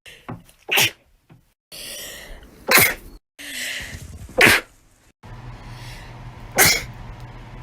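A person sneezing four times in a row, about two seconds apart, each sneeze a sudden loud burst. A smaller catch comes just before the first one.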